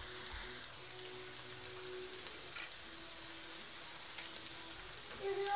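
Batter-coated gimmari (seaweed-wrapped glass-noodle rolls) frying in hot oil in a wok: a steady sizzle with scattered crackles and pops.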